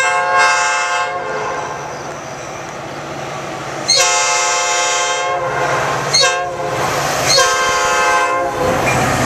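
EMD F40PH diesel locomotive's horn blowing a highway-crossing sequence: long, long, short, long. The last blast cuts off near the end, and the rumble and rail noise of the train passing close follows.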